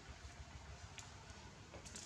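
Near silence: a faint steady outdoor background, with one small click about halfway through.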